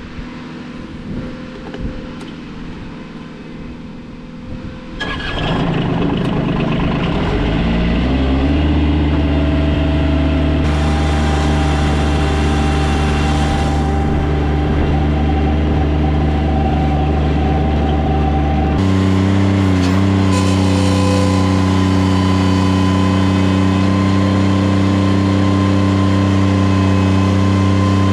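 An engine on a piece of work equipment starts about five seconds in, climbs in pitch and settles into a steady run. About nineteen seconds in the engine note shifts abruptly to a different steady pitch.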